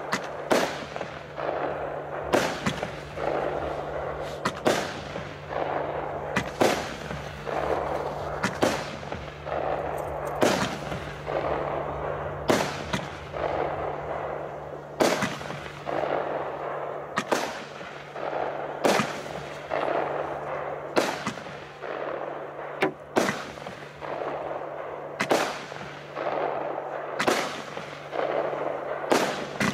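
19-shot, 30 mm consumer fireworks battery (Bomberdrachen) firing shot after shot, about one every two seconds: each a sharp bang followed by about a second of rushing hiss from the burst.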